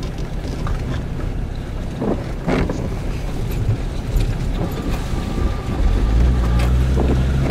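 A 4x4's engine heard from inside the cab, a steady low rumble that grows louder and deeper about six seconds in as the vehicle pulls away over rough ground.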